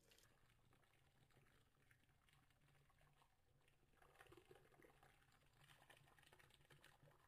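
Water poured in a thin stream into a glass blender jar of tomatoes and chiles: a faint, steady splashing trickle that grows a little louder about four seconds in.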